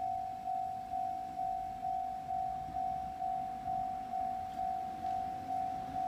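Railway level-crossing warning bell ringing a single tone in an even rhythm, a little over two strikes a second, each strike fading before the next: the crossing is closed for an approaching train.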